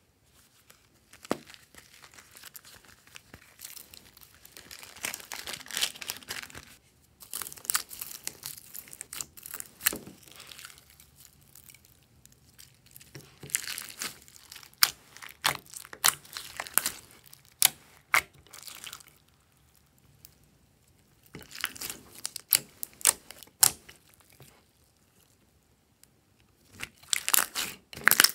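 Hands squishing, stretching and kneading glossy slime mixed with sequins and glitter: bursts of crackling with sharp clicks, separated by short pauses.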